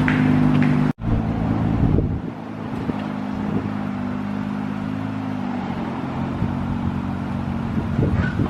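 A car engine running steadily, cut off abruptly for an instant about a second in, then running on with a slight change in its note at about five and a half seconds.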